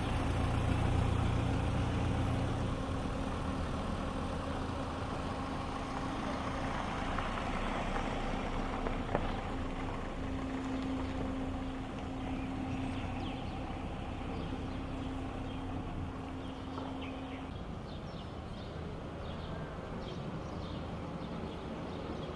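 Outdoor street noise with a motor vehicle's engine running, a steady low hum that stops about three-quarters of the way through.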